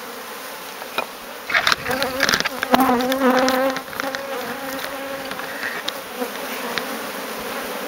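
Honeybees buzzing steadily in an open top bar hive, growing louder and wavering in pitch between about two and four seconds in as bees fly close. A few sharp knocks come in the same stretch.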